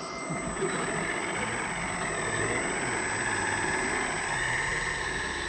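Scale radio-controlled model vehicle running, with a steady engine-like drone and a thin, high, steady whine.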